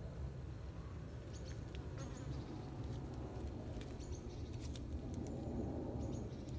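Insects buzzing close by over a steady low rustle, with several short high chirps scattered through.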